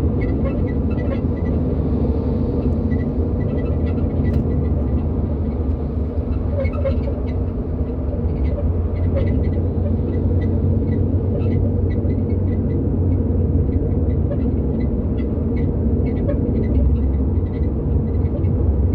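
Steady road and engine rumble inside a moving Mitsubishi RVR, with short, irregular creaks from the rear of the car over it: a strange rear squeak of unknown cause.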